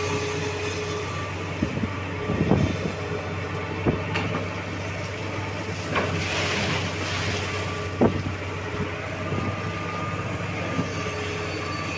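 Tata Hitachi EX-350 excavator's diesel engine running steadily, with several sharp knocks and clanks. A burst of hiss comes about six seconds in.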